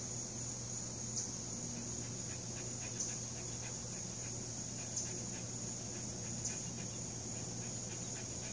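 A steady high-pitched insect trill, typical of crickets, with a slightly louder chirp every couple of seconds. A low steady hum runs underneath.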